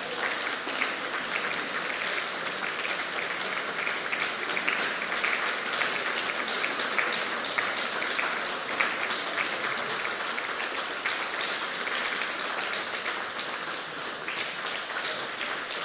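Audience applause at the end of a piece: many hands clapping in a dense, steady patter.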